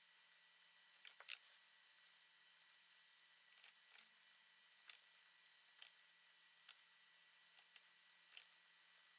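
Faint, short clicks of a computer mouse being worked, about ten scattered irregularly, some in quick pairs, over near-silent room tone.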